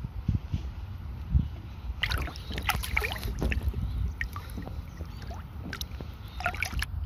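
Wind rumbling on the microphone while small waves of shallow seawater lap and splash right at it, with bursts of splashing about two seconds in and again near the end.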